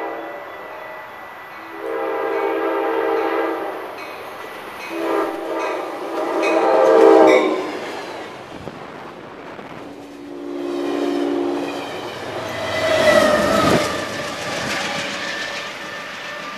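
Amtrak passenger locomotive horn sounding a series of five chord blasts, long and short, loudest about seven seconds in as the train approaches and runs through the station. It is followed by the loud rumble and rail noise of the passenger cars passing, peaking about thirteen seconds in.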